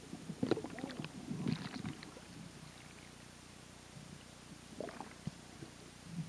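Muffled underwater sloshing and bubbling from water churned by a released sailfish, heard through a submerged camera. There is a cluster of knocks and gurgles between about half a second and two seconds in, and a few more about five seconds in.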